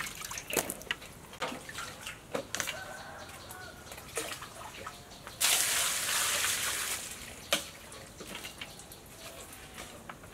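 Water poured from a plastic dipper over peeled taro roots in a plastic colander, splashing into a basin below: one loud pour about five seconds in, lasting under two seconds. Scattered knocks come before and after it.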